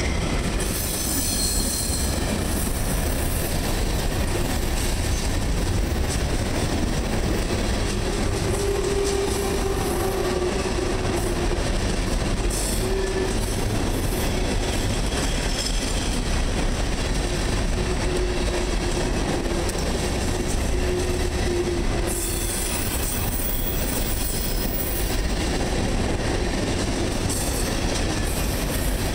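Freight train of ballast hopper cars rolling past close by: a steady rumble and rattle of steel wheels on rail, with a faint squeal from the wheels now and then.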